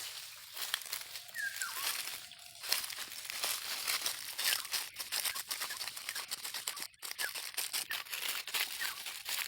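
Dense, irregular crackling and rustling of dry leaves, with a few faint bird chirps about a second and a half in and again near the end.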